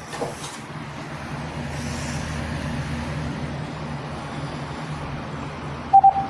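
Two short electronic beeps at one pitch, in quick succession near the end, from a VTech DECT 6.0 cordless phone handset, over a steady low background hum.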